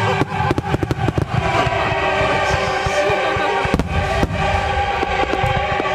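Aerial firework shells and rising comets going off in quick succession, many sharp bangs with a heavier one a little before four seconds in, over steady music playing along with the display.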